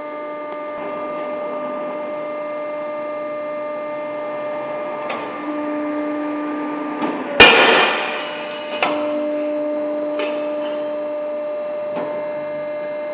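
Sunrise IW45MQ hydraulic ironworker running with a steady motor and pump hum. The hum grows heavier as the shear blade comes down, then there is a single loud crack about seven seconds in as the blade cuts through a metal plate, followed by a few clicks and the hum labouring again for a couple of seconds.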